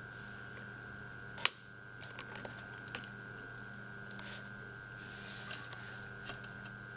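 Steady electrical hum with a fixed high whine, broken by one sharp click about a second and a half in, then scattered light clicks and taps and a couple of brief soft rustles.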